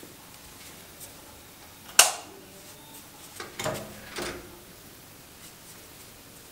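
A sharp single click about two seconds in, like a light switch, then a frosted-glass sliding door rolling along its track with a few soft knocks around the four-second mark, and soft sock-footed steps on the wooden floor.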